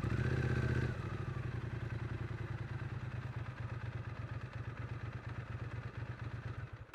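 Triumph Street Twin 900's parallel-twin engine and exhaust under way at low revs, with a short pull and rising note in the first second, then easing off into a steady, evenly pulsing run that slowly fades. The sound cuts off suddenly at the very end.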